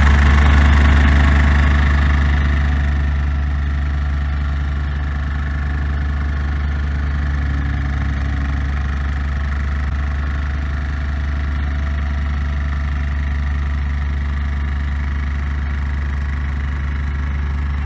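Wacker Neuson diesel plate compactor running steadily, with a strong low hum from its engine and vibrating plate, a little louder for the first two seconds.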